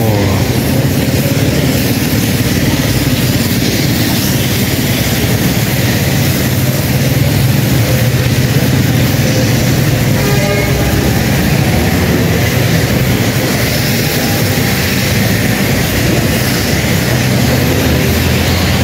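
Steady rush of rain and traffic on a wet city street, tyres hissing on the wet road over a deep, constant rumble.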